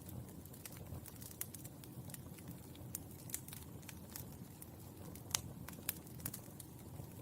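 Burning charcoal crackling: irregular sharp pops and ticks over a low steady background noise, the loudest pop a little past five seconds in.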